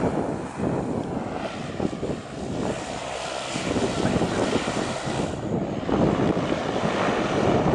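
Wind gusting across the microphone, a rough rumbling buffet that swells and eases.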